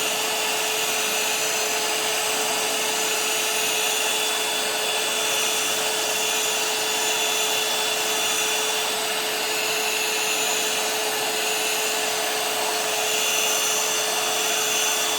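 Ungar heat gun running steadily on its high setting: an even blowing rush from its fan with a constant hum underneath.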